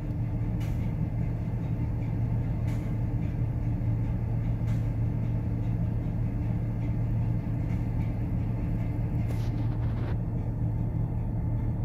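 Steady low hum of a bulk carrier's engine and machinery heard from inside the bridge, with a few faint clicks every couple of seconds.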